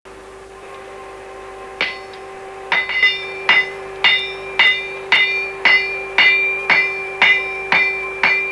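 Blacksmith's hammer striking red-hot steel on an anvil, the sound of a pointed stone-carving chisel being forged. The blows ring out about twice a second, starting about two seconds in, over a steady hum.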